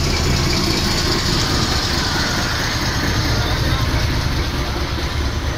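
Narrow-gauge diesel locomotive's engine running with a steady low rumble as it moves slowly past, with no clear change in pitch or loudness.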